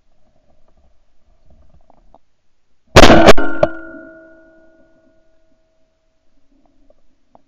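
Shotgun firing twice in quick succession about three seconds in, heard from a camera mounted on the gun barrel, the two reports followed by a metallic ringing that fades over about two seconds.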